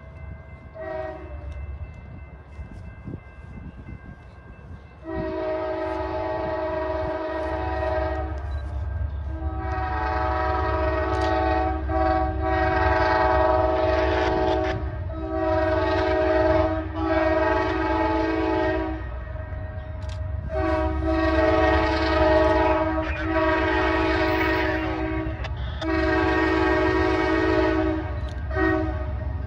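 Approaching diesel train's multi-note air horn sounding a series of long blasts with short breaks, starting about five seconds in, over the low rumble of the locomotive.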